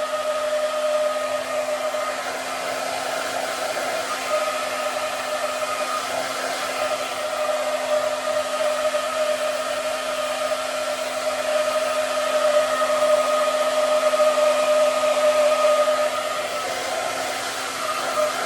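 Hair dryer running steadily: a rush of blown air with a constant whine from its motor and fan, the loudness swelling and dipping a little.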